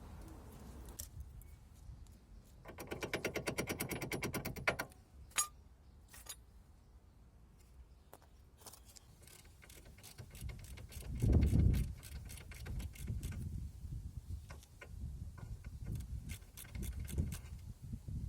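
An impact wrench hammering on a suspension fastener for about two seconds, a fast even rattle of blows, then scattered clicks and knocks of tools and parts being handled, with a dull thump about eleven seconds in.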